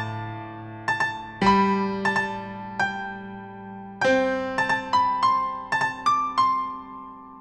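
Background piano music: struck notes and chords that ring and fade, in short melodic runs.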